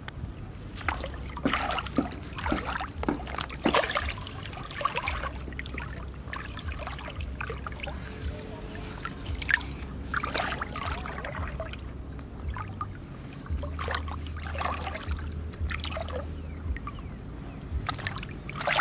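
Hands and arms groping through shallow muddy water, with irregular splashes and sloshing.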